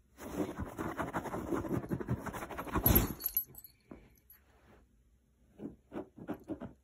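A cat moving and pawing about on a fabric cushion: rapid scratchy rustling for about three seconds, with the metal tag on its collar jingling, then a few short scuffs near the end.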